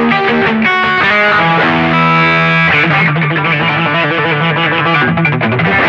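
Distorted electric guitar playing rock, with long held notes that waver with vibrato in the second half.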